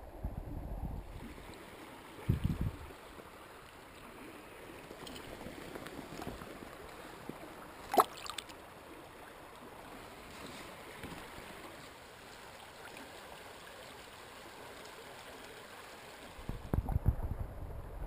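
Shallow river water rippling and lapping close to the microphone at the water's surface. Low bumps come about two seconds in and again near the end, and there is one sharp click about eight seconds in.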